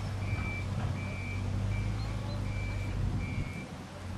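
An electronic warning beeper, like a vehicle's reversing alarm, sounding a steady high beep about one and a half times a second over a low engine rumble; the beeping stops near the end.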